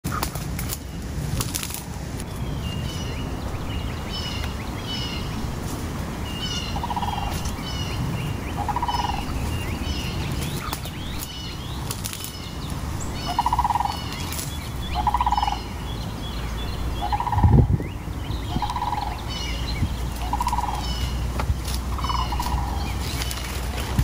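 Birds calling in the undergrowth: a short, lower call repeated every couple of seconds, with higher chirping notes around it, over a low rumble. One low thump about two-thirds of the way through is the loudest sound.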